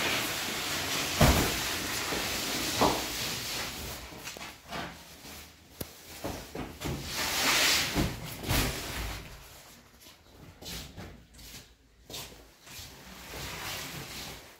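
Heavy woven sacks rustling and scraping as they are dragged and lifted, with several dull thumps as they are dropped onto the floor, the loudest about a second in.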